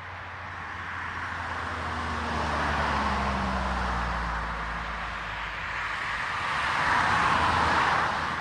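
Two cars passing one after the other on an asphalt road, each swelling up and fading away. The first, about three seconds in, carries a low engine hum that drops slightly in pitch as it goes by; the second, louder one is mostly tyre noise near the end.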